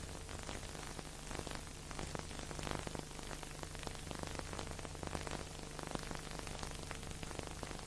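Steady hiss with dense crackle over a low hum and no music: the surface noise of an old film soundtrack transfer.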